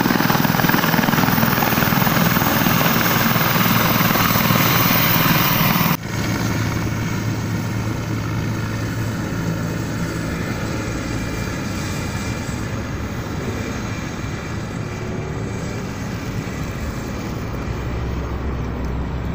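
Helicopter running close by, a loud, steady rush of rotor and engine noise. About six seconds in it cuts off suddenly, giving way to the quieter, steady noise of a moving road vehicle with a low hum.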